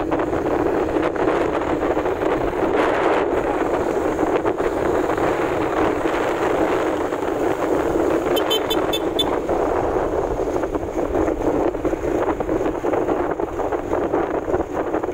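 Wind rushing over the phone's microphone with steady engine and road noise from riding on a motorcycle. A quick run of five or six high beeps about eight and a half seconds in.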